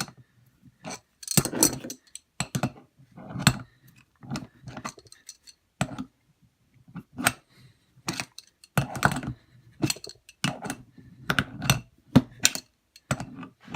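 Irregular metal clicks and clinks from a pressure-washer hose's quick-release coupling and its fittings being worked by hand.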